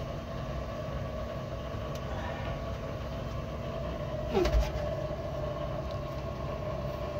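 Steady mechanical hum, with one short knock about four and a half seconds in.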